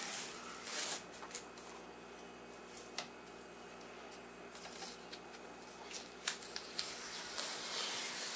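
Green painter's masking tape being handled and peeled off a freshly lacquered wooden radio cabinet: faint rustling and crackling with a few sharp ticks, and a longer rustle near the end.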